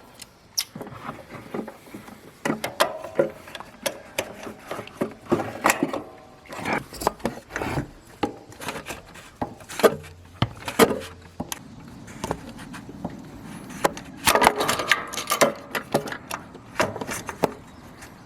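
Oil filter wrench being fitted on and turned against a newly installed oil filter: irregular knocks, clicks and scraping of tool against metal, with a longer stretch of rubbing about two-thirds of the way through.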